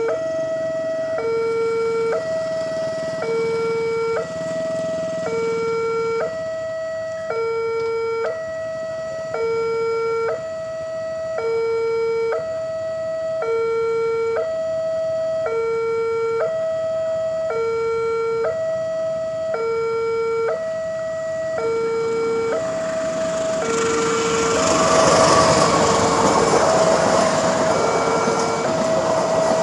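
Indonesian railway level-crossing alarm sounding two steady electronic tones, high and low, alternating about once a second. About 24 s in, the loud rumble and rail noise of a passing train rises and joins the alarm.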